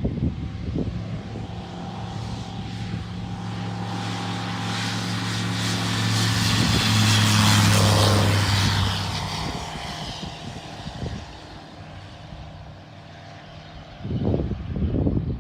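Light sport aircraft's propeller engine at takeoff power as the plane passes, growing louder to a peak about halfway through and then fading away. Wind buffets the microphone at the start and again near the end.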